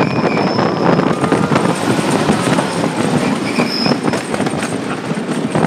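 Coney Island Cyclone wooden roller coaster train running at speed over its wooden track: a loud, dense rattle, with a brief high wheel squeal at the start and again about four seconds in.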